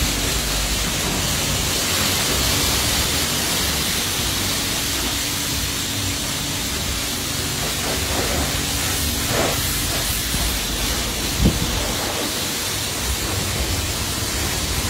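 High-pressure water spray from a self-serve car wash wand, hissing steadily as it rinses soap off a car's body. A brief knock comes about eleven seconds in.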